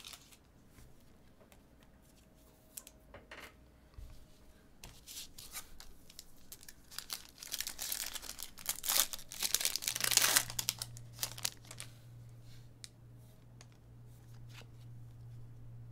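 Trading-card packaging and plastic crinkling and tearing as cards are handled, busiest and loudest around the middle.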